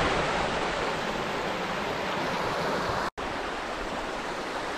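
River water flowing, a steady rushing noise. It drops out for a moment about three seconds in, then resumes a little quieter.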